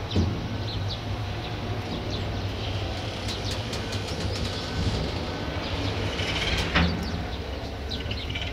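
Steady low rumble of a train, with two sharp knocks, one just after the start and a louder one near the end. Birds chirp over it.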